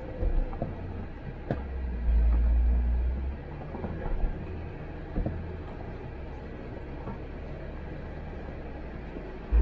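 Jeep driving slowly along a rough dirt trail: a low engine and drivetrain rumble that swells for about a second early on, with a few short knocks.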